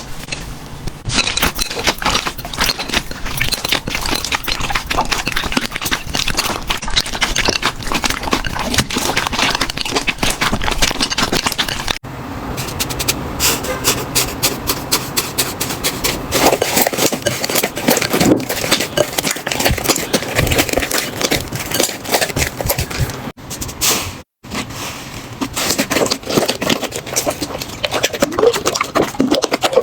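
Slime being squeezed, poked and pressed by hand, giving a dense, continuous run of crackles, pops and squelches. The sound breaks off abruptly about twelve seconds in and again about twenty-four seconds in, as one clip cuts to the next.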